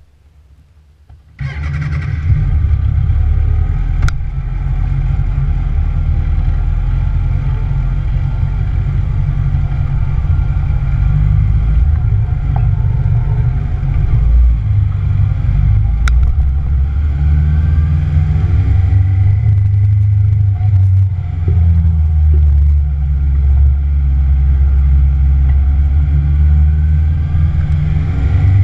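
2009 Kawasaki ZX-6R inline-four engine starting suddenly about a second in, then running at low revs as the bike moves off slowly. The revs rise and fall more toward the end.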